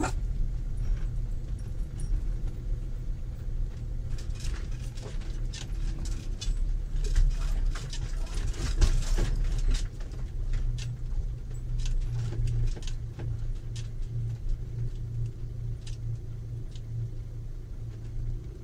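Camper van driven slowly over a potholed dirt track, heard from inside the cab: a steady low engine and road hum with scattered rattles and knocks from the van's body and contents as it jolts through the holes. The knocks are thickest in the middle and loudest about nine seconds in.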